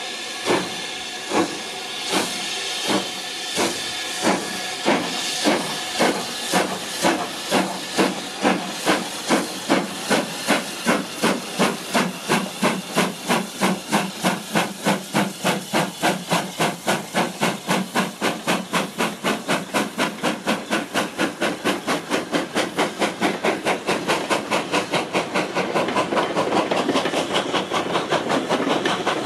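BR Standard Class 5 two-cylinder 4-6-0 steam locomotive starting away with its train: exhaust chuffs begin slow, about one every 0.7 seconds, and quicken steadily to around three a second as it gathers speed, over a steady hiss of steam.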